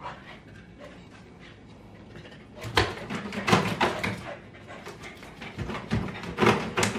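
A hunting dog sniffing and panting in quick, short breaths, nose to the gap under a kitchen cabinet, tracking a rat by scent. The sniffing starts about three seconds in.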